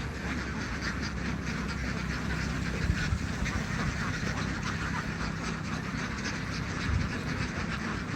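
A large flock of ducks quacking, many calls overlapping continuously, over a low steady hum.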